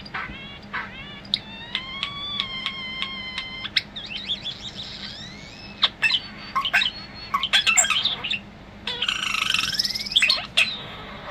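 European starling singing a varied, mimicking song: a run of quick down-slurred whistles, then a held tone broken by about five clicks a second. It goes on into a jumble of sharp clicks, rattles and whistles, and ends with a harsh wheezy passage and a rising whistle.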